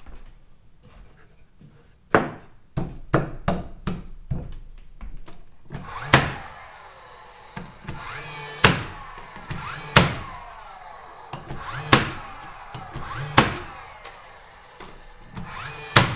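Cordless nail gun firing nails into wooden framing: a quick run of lighter shots, then six loud sharp shots a second or two apart, each followed by a falling whine.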